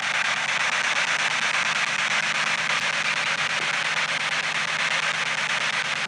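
Steady radio static hiss from a spirit box, a handheld radio scanning rapidly across the band.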